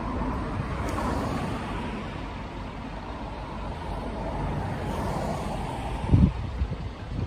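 Road traffic passing, a steady rushing that swells about a second in and again around five seconds, with wind buffeting the microphone and a heavy gust just after six seconds.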